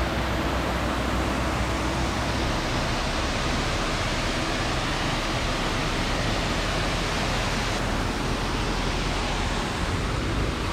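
Steady noise of a waterfall's falling water, an even hiss that does not change.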